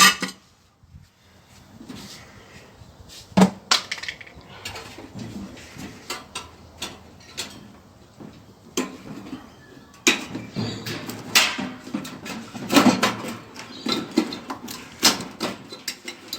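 Scattered metallic knocks, clanks and rattles of parts being handled and pried loose while a microwave oven is taken apart for scrap. One sharp knock comes about three and a half seconds in, and the clattering grows busier in the last six seconds.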